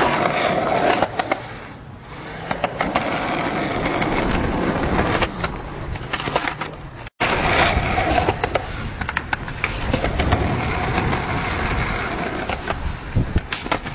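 Skateboard wheels rolling over concrete, with many sharp clacks of the board and trucks striking the ground and ramps. The sound cuts out for an instant about seven seconds in, then resumes.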